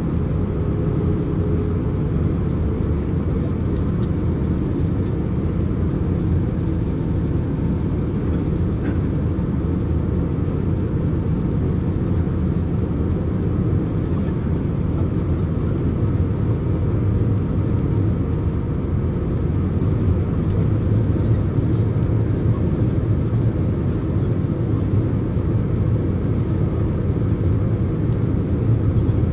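Steady cabin noise inside an Airbus A319-131 in flight: a constant low rumble of its IAE V2500 engines and the airflow over the fuselage, heard from a window seat near the front.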